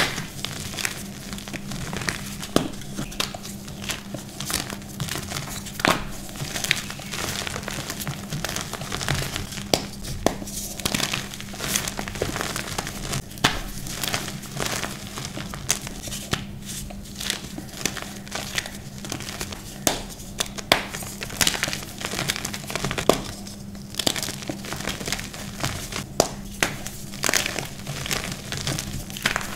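Hands squeezing and crumbling chunks of reformed, dyed chalk powder: dense, irregular crunching and crackling with sharper snaps scattered throughout, over a faint steady low hum.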